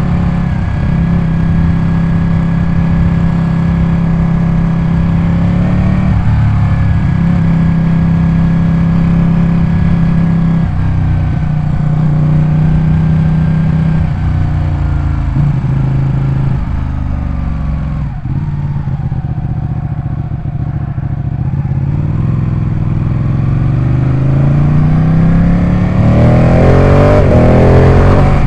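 Ducati 899 Panigale's Superquadro V-twin engine running at a steady speed that steps up and down several times. Near the end it revs up sharply and gets louder.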